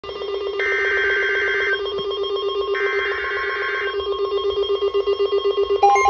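NOAA weather radio receivers going off for a warning alert: a rapidly pulsing, ringing alarm tone, with two screeching bursts about a second long of the SAME digital alert header over it. Just before the end a second radio's beeping alarm joins in.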